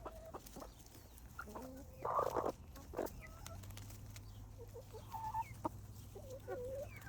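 Hens clucking with short, scattered calls, one louder call about two seconds in.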